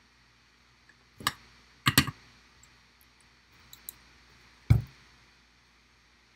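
Metal helping-hands soldering stand being picked up and set down on a wooden workbench: sharp clacks about a second in and a quick double clack at two seconds, a couple of faint ticks, then the loudest, heavier thump a little under five seconds in.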